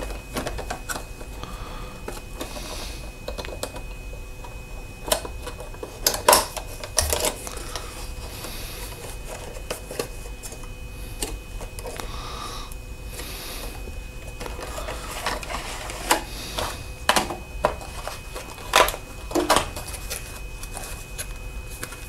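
Packaging being handled: a white paperboard box opened and a clear plastic blister tray lifted out, making intermittent rustling with scattered sharp clicks and crinkles.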